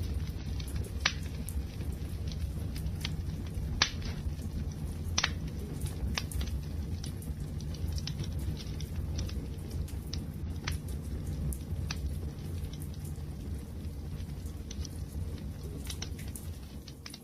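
Wood campfire burning with a steady low rumble, and sharp pops and crackles every second or two. The sound drops away briefly near the end.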